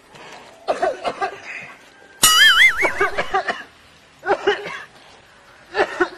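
Short bursts of laughter, with a loud wobbling whistle-like comedy sound effect about two seconds in.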